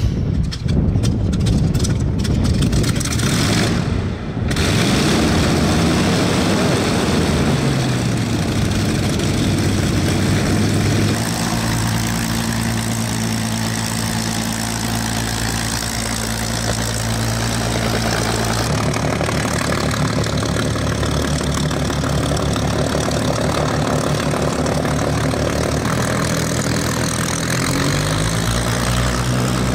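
Spitfire's Rolls-Royce Griffon V12 just after start, firing roughly and unevenly for the first few seconds, then settling into a steady idle. The pitch falls back about eight seconds in, steps down again a little after halfway, and rises near the end as the engine is opened up.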